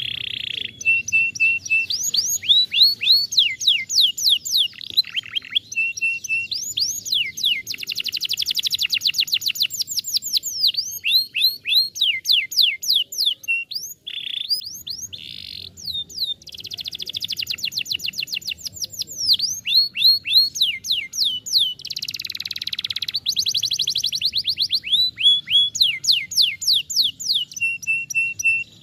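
Domestic canary singing a long, loud song. It runs through repeated quick downward-sweeping notes, stretches of very fast trills and a few buzzier rolls, one phrase after another with hardly a pause.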